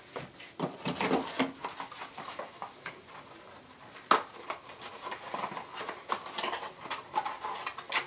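Rustling of plastic wrap and cardboard packaging as a part is lifted out of a box, with scattered knocks and one sharp knock about four seconds in.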